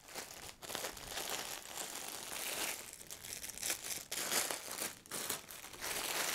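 Plastic packaging bag crinkling in irregular bursts as hands handle it and open it.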